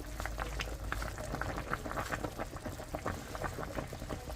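Pot of miyeokguk (Korean seaweed soup) boiling, with many small bubbles popping irregularly over a low hum.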